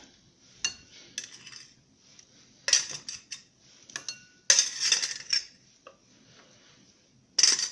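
Metal tongs and a spoon clinking and scraping against a small metal cooking pot and a bowl while lifting out pieces of cooked chicken. It comes in several separate bursts of clinks, a few leaving a short metallic ring.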